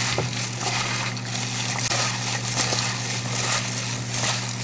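Plastic-gloved hand tossing sliced jellyfish and vegetables with sauce in a stainless-steel bowl: a continuous wet, crinkly rustle of the food and the glove, over a steady low hum.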